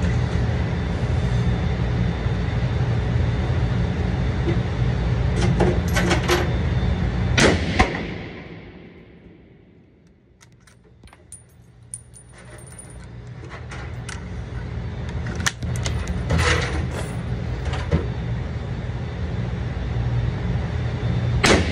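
Steady rush of an indoor shooting range's ventilation, broken by the sharp cracks of rifle shots about eight seconds in and again near the end, with lighter clicks and metallic tinkles between. The background fades away for a few seconds after the first shot and slowly comes back.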